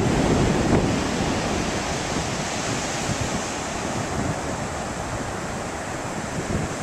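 Atlantic surf breaking and washing up the beach, a steady rushing noise with some wind on the microphone; it is loudest at the start and eases gradually.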